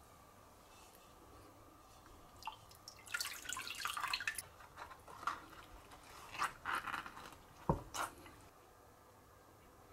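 Water splashing and dripping as hands lift a boiled bamboo shoot out of a pot of water, then a single sharp knock, the shoot set down on a wooden cutting board.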